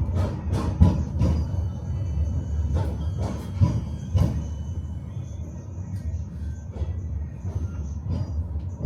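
Tram rolling along its rails, heard from inside the car: a steady low rumble with the wheels knocking over rail joints, several sharp knocks in the first half that thin out and soften later on.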